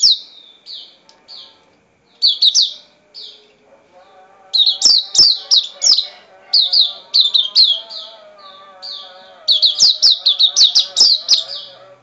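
Caged auriventer white-eye singing: runs of short, high chirps that slur downward, scattered over the first few seconds, then coming fast and almost unbroken, with a brief pause near two-thirds of the way through.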